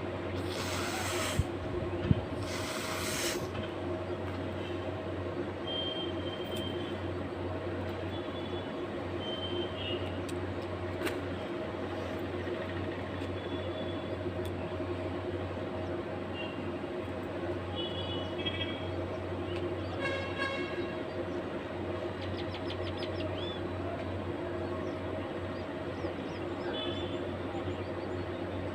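Steady low mechanical hum throughout, with short high chirps now and then, like small birds. Two brief rushes of breathy noise come in the first few seconds.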